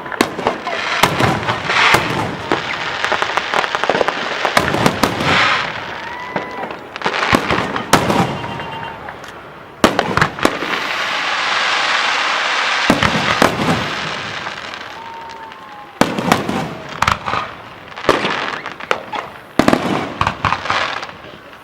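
Fireworks display: aerial shells bursting in a rapid series of sharp bangs, with crackling after them. About halfway through there is a few seconds of continuous dense crackle, and there are a few short whistles.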